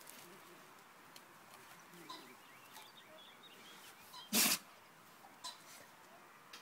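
Standard Schnauzer sneezing once, a single short, sharp burst about four seconds in, with a weaker snuffle a couple of seconds before it.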